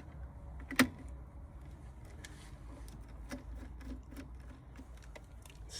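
One sharp click about a second in, then faint scattered ticks and handling noises: wires and a tool being worked at an air handler's control board terminal, over a low steady hum.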